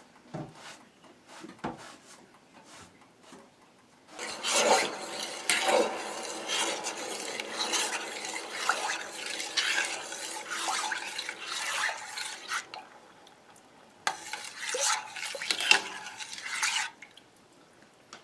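Spoon stirring milk in a pot, scraping and clinking against the pot, in two spells: a long one starting about four seconds in, and a shorter one near the end.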